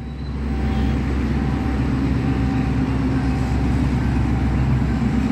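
Alsthom diesel-electric locomotive, still on its original engine, running as it approaches. Its low engine drone grows louder about a second in and then holds steady.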